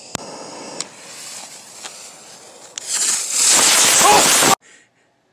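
A lit ground-spinner firework hissing as it sprays sparks, building to a loud rushing hiss about three seconds in, then cutting off suddenly. A few sharp clicks sound in the first three seconds.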